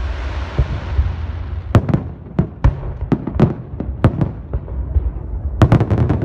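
Fireworks bursting overhead. A hissing crackle over the first second or so is followed by a series of sharp bangs spaced irregularly, and a quick cluster of several bangs near the end.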